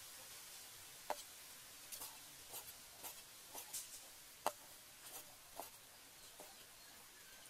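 Light handling noise on a wooden chopping board as a cleaver and fingers push snail meat onto minced pork: scattered soft ticks and brief scrapes, with two sharper knocks, one about a second in and one a little past four seconds.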